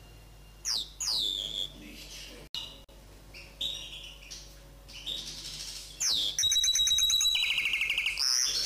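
Common linnet × canary hybrid singing: varied phrases of sweeping whistled notes and buzzy notes that start just under a second in, then two fast trills, the second lower in pitch.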